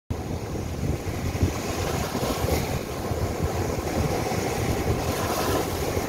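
Small surf breaking and washing up a sandy beach, its hiss swelling twice as waves come in, with wind buffeting the microphone in a low rumble.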